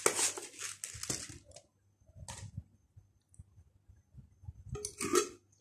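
Spice containers and packets being handled: a few short rustling, clicking bursts, a cluster at the start, one brief one in the middle and another shortly before the end, with quiet stretches between.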